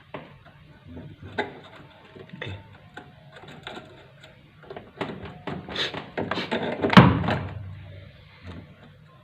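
Scattered clicks and knocks from parts being handled during repair of a top-loading washing machine. The knocks get busier about five seconds in, with one loud thunk about seven seconds in.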